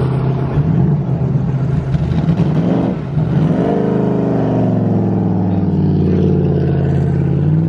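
Car engine idling steadily; about three seconds in the revs dip and then rise to a higher steady idle, settling back down near the end.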